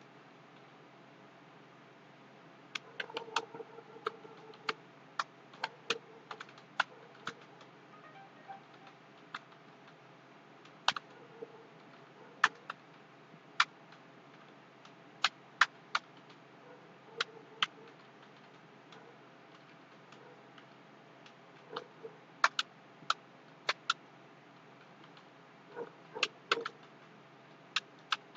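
Typing on a computer keyboard: irregular keystroke clicks in short runs, with pauses between them.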